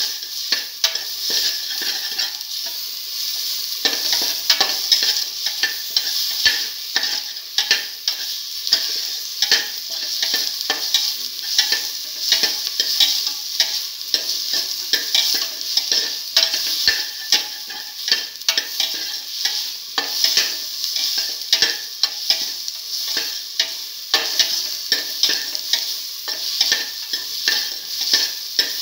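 Tomato, ivy gourd and shallot pieces sizzling in oil in a stainless steel pot while a slotted spoon stirs them. The steady sizzle runs under many quick scrapes and knocks of the spoon against the pot.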